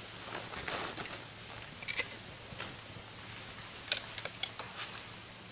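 A handful of short, scattered rustles and light clicks, with a faint steady background between them.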